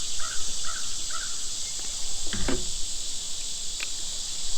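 Steady high-pitched drone of a summer insect chorus, with four short, evenly spaced chirps in the first second and a single sharp knock about halfway through.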